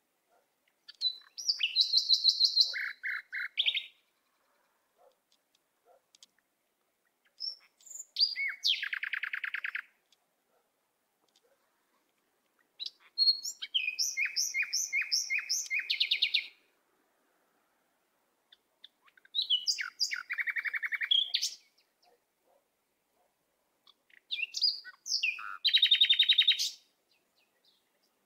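A songbird singing in five separate phrases of rapid, high-pitched repeated notes and trills, each two to three seconds long, with silent gaps of a few seconds between them.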